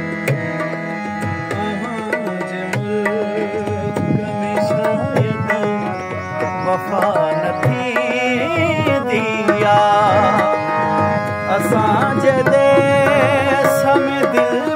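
Harmonium and dholak playing a Sindhi song, the harmonium holding chords and melody while the dholak keeps a steady rhythm of hand strokes. The singer's voice comes in on held, wavering notes without words in the second half, and the music grows a little louder.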